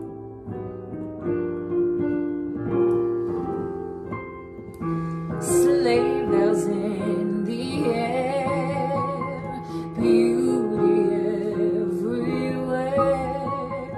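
Piano playing a slow holiday ballad alone, then a woman's solo singing voice with vibrato comes in about five seconds in over the piano accompaniment.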